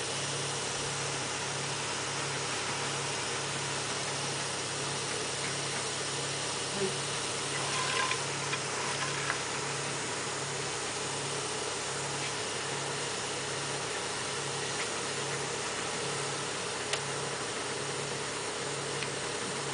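Work-site machinery running steadily, a low hum throbbing about three times every two seconds over an even noise, with a few faint clicks and knocks from the work near the middle.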